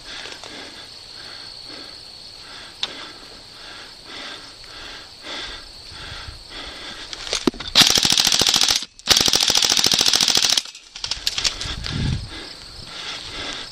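Airsoft gun firing two full-auto bursts close by, each a rapid, even rattle of shots: one lasting about a second, then after a brief pause another of about a second and a half.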